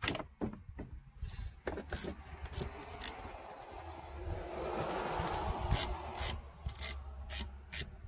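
Hand tool working loose an 8 mm bolt on top of a generator's starter: scattered sharp metallic clicks, with a stretch of steady rubbing and scraping around the middle.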